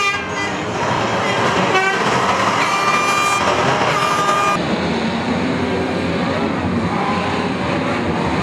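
Many banger race cars' engines running and revving together in a dense roar, with horns tooting; a steady horn note sounds about two and a half seconds in and cuts off about two seconds later.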